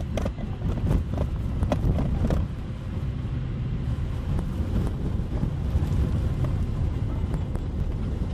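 Car driving on a snowy, slushy road, heard from inside the cabin: a steady low rumble of tyres and engine, with several knocks and clicks in the first couple of seconds as it rolls through a junction.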